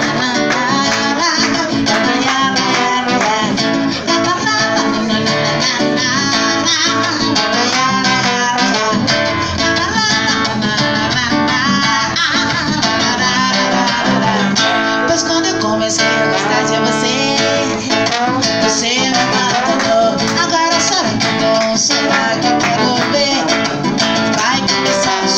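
Acoustic guitar strummed and picked, with a trombone playing the melody over it: an instrumental passage of a song played live.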